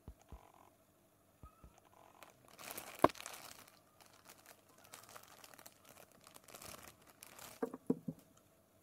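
Clear plastic packaging bag crinkling as a watch is pulled out and handled, with one sharp click about three seconds in and a few soft knocks near the end.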